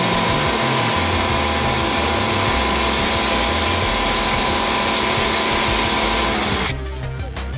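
Electric pressure washer running steadily, its motor and pump whine under the hiss of a foam cannon spraying. The sound cuts off abruptly about six and a half seconds in and strummed guitar music starts.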